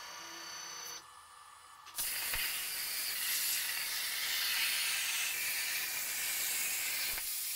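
CNC plasma torch cutting steel plate: the arc starts about two seconds in with a sudden loud, steady hiss that runs for about five seconds and cuts off just before the end.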